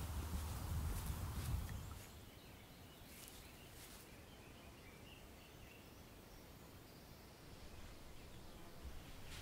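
Quiet garden ambience with birds chirping faintly. A low rumble in the first two seconds drops away.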